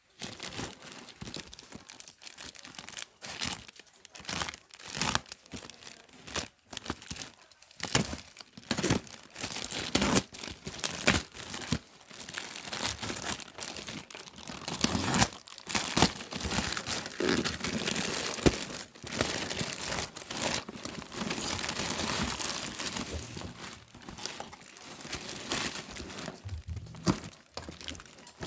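Packaging being unwrapped by hand: a continuous run of crinkling and tearing, with many sharp crackles.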